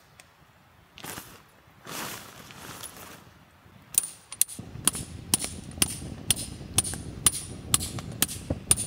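Hammer driving a metal tent peg: sharp metallic strikes about two a second, each with a short ringing ping, starting about four seconds in.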